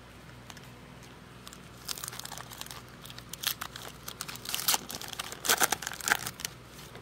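Foil wrapper of a Panini Prizm card pack crinkling and tearing as it is pulled open by hand, beginning about two seconds in, with the sharpest crackles near the end.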